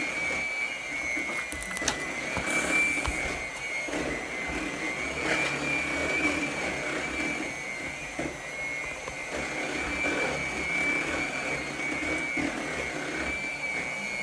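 Clear slime being handled for ASMR: soft, irregular squishing with scattered small clicks and pops, over a steady high-pitched whine in the background.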